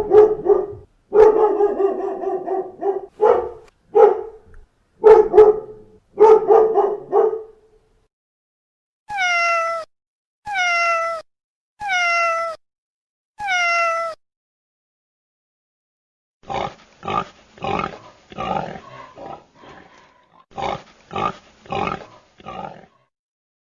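Animal calls in turn: a dog barking repeatedly, then a cat meowing four times, each meow falling in pitch, then a run of short rough grunts.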